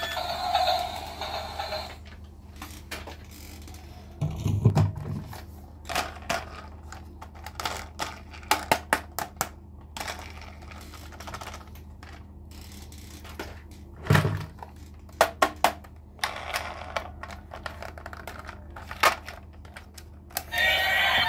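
Plastic toy train being handled: scattered clicks, taps and knocks of hard plastic, some in quick little runs, as it is picked up and turned over. The toy's electronic tune stops about two seconds in.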